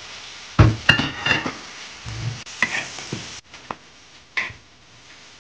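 A metal spatula scraping and clinking against an iron wok and a china plate while lifting out pan-cooked cornmeal cakes, with a few sharp clinks that ring briefly, over a faint sizzle that stops a little past the halfway point.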